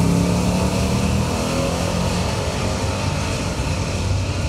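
Engines of two drag-racing vehicles, an old pickup truck among them, accelerating hard away down the strip. The engine note fades after about two seconds.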